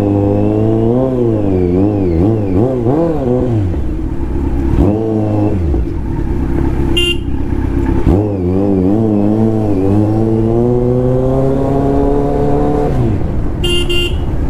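Kawasaki Z900's inline-four engine running under way: its pitch swings up and down with the throttle for the first few seconds, falls away briefly, then climbs steadily in one long pull before dropping off near the end. A vehicle horn sounds briefly about seven seconds in and again in a few quick beeps near the end.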